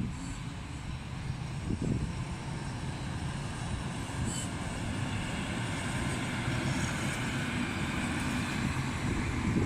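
A train of passenger coaches hauled by a blue diesel shunting locomotive rolls past: a steady low rumble of the engine and wheels on the rails. A higher hiss of wheel and rail noise builds from about halfway through.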